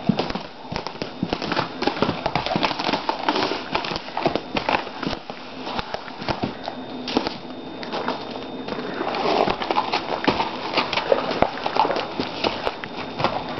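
A horse moving about close by on grass and gravel: irregular clicks, shuffles and rustles.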